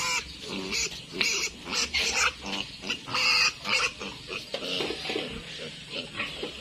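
Piglets squealing in a rapid run of short, high calls, typical of piglets held for castration.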